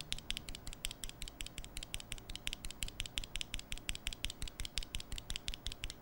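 An Akko CS Rose Red linear mechanical keyboard switch held close to the microphone and pressed and released by hand over and over. It gives a quick, even run of light plastic clicks, about six or seven a second.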